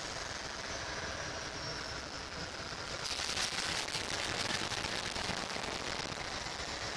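TE-10 diesel locomotive's 10-cylinder diesel engine running rough just after start-up, its exhaust crackling. About three seconds in, a louder hissing rush lasts a couple of seconds before it settles back.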